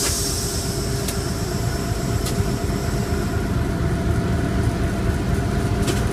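Class 749 diesel-electric locomotive's engine running steadily as it pulls away, heard inside the cab. A high hiss of air fades out over the first few seconds, and there are a few light clicks.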